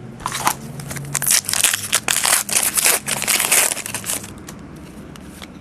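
Crinkling and crackling of a foil trading-card pack wrapper and the cards being handled, a dense run of sharp crackles that stops about four seconds in.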